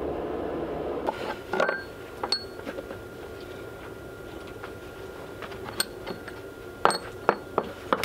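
Scattered metal clinks and knocks as a steel axle and its bearing fittings are handled and worked into place on a wooden sawmill carriage. The sharpest strikes come near the end.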